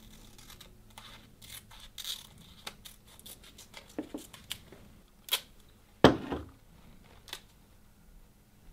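Scissors snipping a thin etching stencil: a run of short, sharp cuts and crinkles, with a louder knock about six seconds in.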